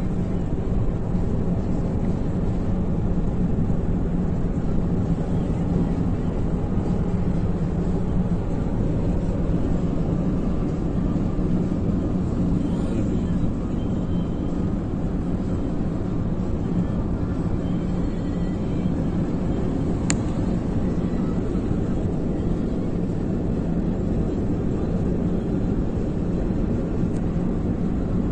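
Steady low drone of a car driving, heard from inside the cabin: engine hum and road noise, with one brief click about twenty seconds in.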